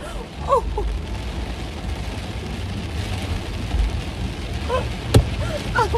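Heavy rain drumming on a car's roof and windows, heard from inside the cabin over the low rumble of the car driving. A woman laughs briefly near the end, and a single sharp click sounds about five seconds in.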